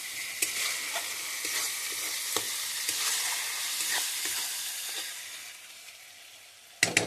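Masala frying in oil in a metal kadhai, sizzling while a steel spatula stirs and scrapes through it, with the odd click of spatula on pan. The sizzle dies down toward the end, and a louder burst of sound starts just before the end.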